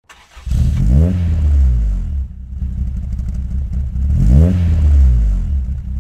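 A car engine revved twice, each rev sweeping up in pitch and then falling back to a steady low running sound.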